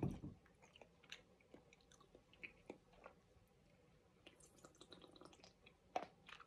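Faint, scattered mouth noises of a person chewing and drinking from a drink can: small wet clicks, with a short run of sips about four to five seconds in.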